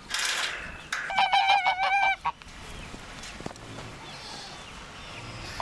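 Domestic grey geese honking: a quick run of nasal honks about a second in, lasting about a second, after a short hissing noise at the start.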